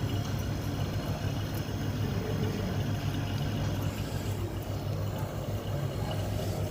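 Deep freezer's refrigeration compressor running with a steady low hum after being charged with R-290 gas, drawing what the technician calls the correct current.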